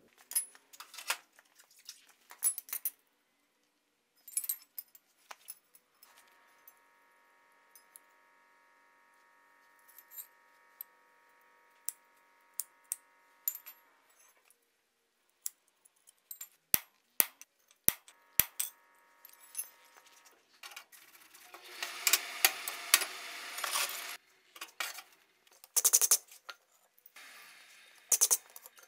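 Pieces of forged steel clinking and knocking as they are handled and set down, in a scattered series of sharp metallic clinks. A faint steady hum runs for several seconds in the middle, and a few seconds of rough scraping noise come past two-thirds of the way through.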